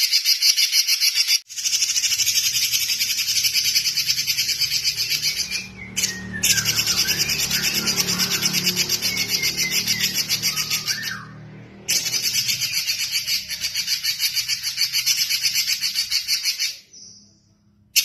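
Red-billed leiothrix (Pekin robin) singing a fast, rapidly pulsed, chattering song in long bouts broken by a few brief pauses. The song stops about a second before the end.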